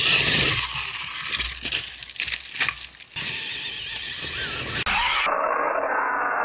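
Kyosho Foxx VE electric RC truck running over loose dirt: tyres scrabbling and a string of sharp knocks as it bounces and lands on the slope.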